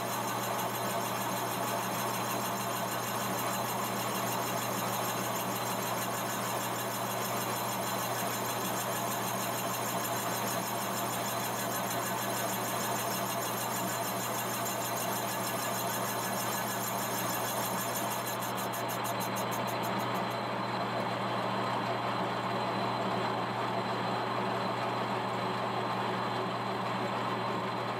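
Monarch engine lathe running steadily while turning a cut in a turbocharger compressor cover, a steady machine hum with a faint squeal from the cut. About twenty seconds in the higher hiss drops away and the hum carries on.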